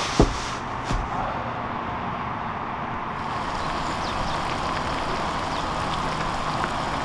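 Pan of ramen boiling hard on a camp stove: steady bubbling and hiss. A couple of light knocks come in the first second.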